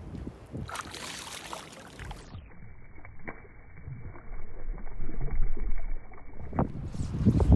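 A released trout splashing in shallow lake water as it swims off from the bank. Water sloshes at the grassy edge, and wind buffets the microphone near the end.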